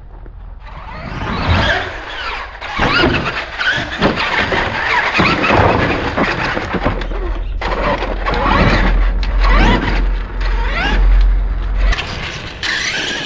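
Brushless VXL motor and drivetrain of a Traxxas E-Maxx RC monster truck on 4S, whining up and down in pitch as the throttle is blipped over and over, with tyres scrubbing on asphalt. A harsher burst of noise comes near the end.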